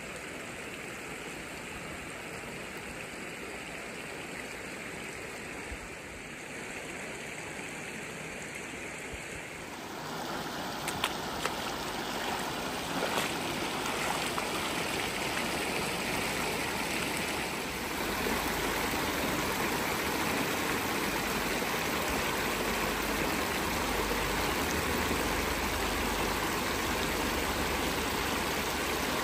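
Shallow stream running over stones and spilling across a low concrete crossing: a steady rush of water that grows louder about a third of the way in and again just past halfway.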